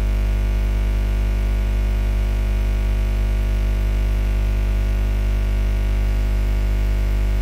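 Steady electrical mains hum and buzz: a low hum with a stack of higher buzzing overtones, never changing in level.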